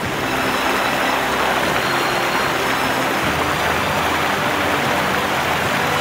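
Steady rush of a large waterfall, heavy water pouring down a rock cliff.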